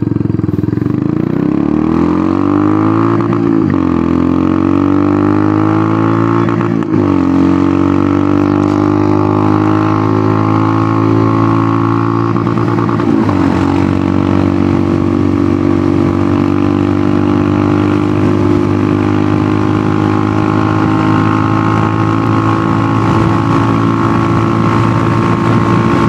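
Royal Enfield Hunter 350's 349 cc single-cylinder engine through an aftermarket megaphone exhaust, accelerating through the gears on a short drag run. The note rises and drops sharply at upshifts about three, seven and thirteen seconds in, then holds steady at cruising speed.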